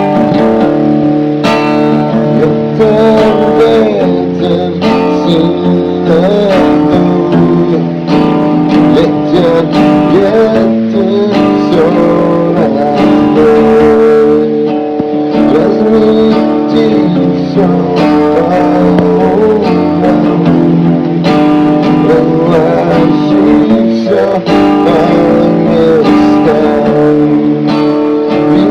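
Music: a song led by strummed acoustic guitar, with a wavering melody line above the chords.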